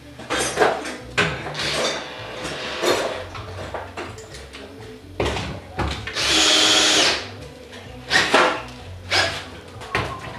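A power drill runs once for about a second, partway through, at the steel track bracket of a sectional garage door. Sharp knocks and clatter from handling the door's metal fittings come before and after it.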